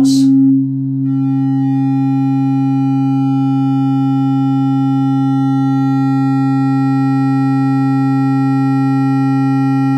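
Steady 270 Hz sine test tone played loudly through a small subwoofer driver in a 3D-printed half-horn scale-model enclosure, driven at up to about 15 watts for a sound-pressure measurement at 45 Hz scaled. The tone dips briefly about half a second in, then holds steady.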